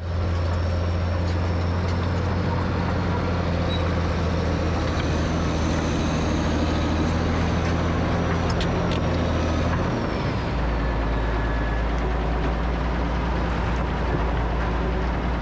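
Caterpillar crawler loader's diesel engine running steadily, with a thin high whine over it that rises and falls. The engine note drops lower about ten seconds in.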